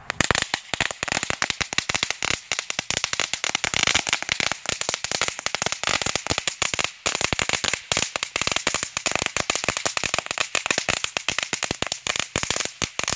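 A 350-count string of Shougun lady finger firecrackers going off: a rapid, unbroken crackle of small bangs that starts suddenly and keeps going.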